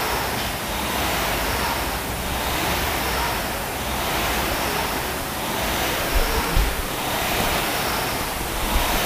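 Air-resistance rowing machine's fan flywheel whooshing, swelling and fading with each stroke about every one and a half seconds. A couple of low thumps come about six seconds in.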